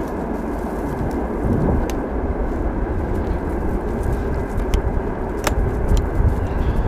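Wind buffeting the camera's microphone in a steady low rumble, with a few sharp clicks about two, five and five and a half seconds in.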